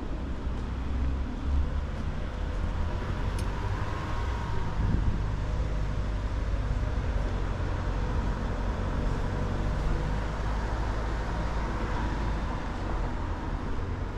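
Steady city traffic noise from surrounding streets, mostly a low rumble with a broad hiss above it.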